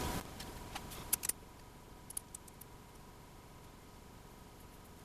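Faint, sparse small clicks and ticks of a 6-32 machine screw and aluminium bracket being handled by fingers against the metal of the mill table, a few about a second in and a couple more around two seconds in.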